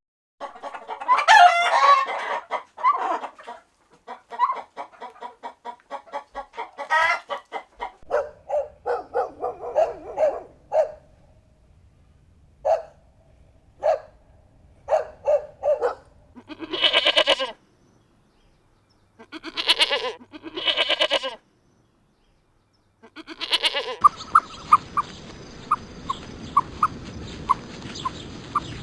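Chickens clucking and calling: a fast run of short clucks, then a few longer, louder calls. Near the end there is a steady hiss with short chirps at an even pace.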